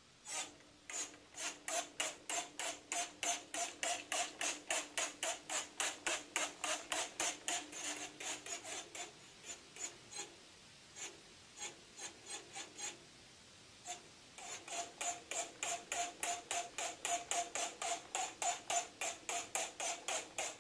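A trigger spray bottle squeezed rapidly, about three or four sprays a second, misting water over wood blocks sealed with homemade oil-and-wax finishes to test how well they repel water. The spraying slows to a few squeezes midway, then picks up again at the same pace.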